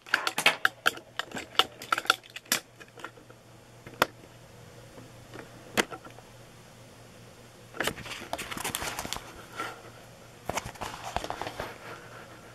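Stiff clear plastic cover sheet on a large diamond painting canvas crinkling and crackling as it is handled: clusters of sharp clicks and crackles, thickest in the first few seconds and again in the second half, with a few single ticks in between.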